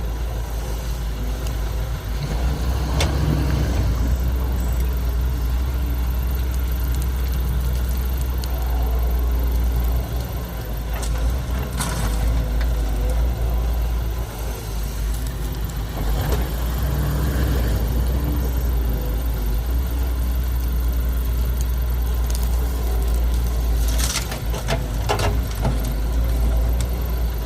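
Heavy diesel engines of an excavator and dump truck running steadily, with a few sharp knocks.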